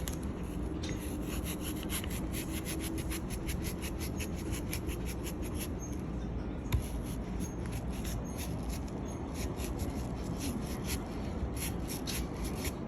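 Small kitchen knife cutting into an apple with quick, repeated short strokes, and one louder knock about halfway through.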